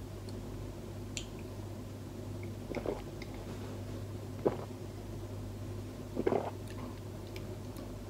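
A man drinking beer from a glass: a few soft gulps and mouth sounds, spaced a second or two apart, over a steady low hum.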